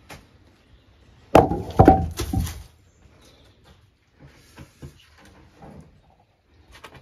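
Dry, fallen wood cracking and splintering: a sudden loud break with several sharp snaps over about a second, followed by a few light knocks.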